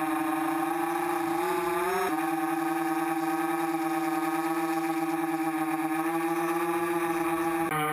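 Brushless motors and propellers of a three-motor T-copter whining steadily in flight, heard from its onboard camera. The pitch climbs slightly and shifts about two seconds in as the throttle changes.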